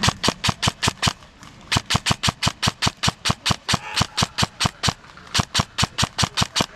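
Airsoft gun firing rapid single shots, about five a second, in three strings broken by short pauses.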